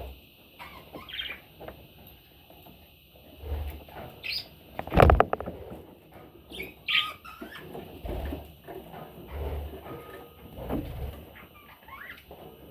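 Budgerigar chicks giving faint, scattered high chirps, among rustling and low handling bumps, with one loud knock about five seconds in.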